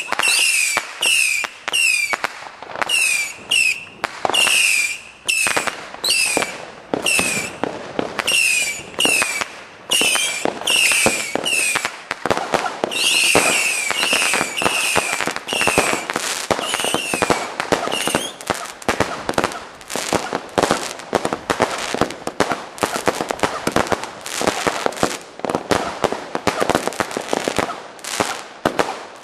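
Consumer fireworks firing shot after shot. For the first eighteen seconds or so there are about two whistling shots a second, each a short whistle falling slightly in pitch. Then comes a denser run of rapid cracks and pops from bursting stars.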